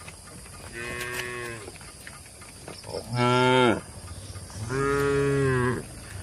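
Cattle mooing three times: a fainter moo about a second in, then two loud moos. The loudest comes about three seconds in and drops in pitch at its end; the last is longer and holds steady.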